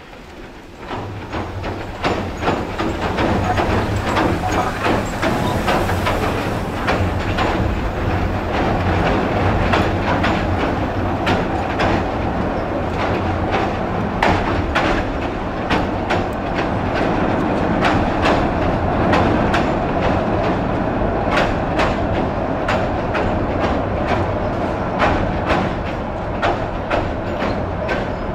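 Metre-gauge steam-hauled train passing close by. The sound swells sharply in the first two seconds as the YC-class 4-6-2 locomotive draws level. The coaches and wagons then roll steadily past, wheels clicking irregularly over the rail joints.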